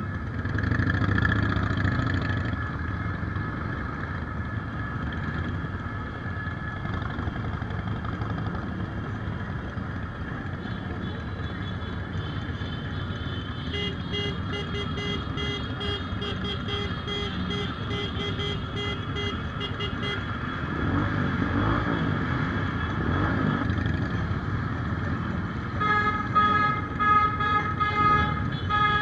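Motorcycle engines running at low speed in a slow group ride, with a horn beeping in rapid repeated toots for several seconds midway and again near the end. Engines rev up and down in between.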